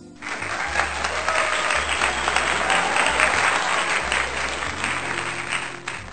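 Crowd applause, a dense sound effect of many hands clapping that starts abruptly and cuts off near the end, laid over soft background music with a low bass line.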